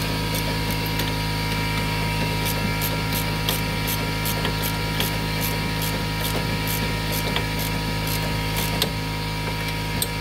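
Hand ratcheting wrench clicking as it turns the nut on a sway bar link pin, about three clicks a second, with a steady hum underneath.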